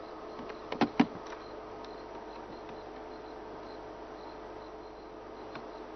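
Insects chirping in the bush, a faint high call repeating about three times a second over a steady background hiss, with a few sharp clicks about a second in.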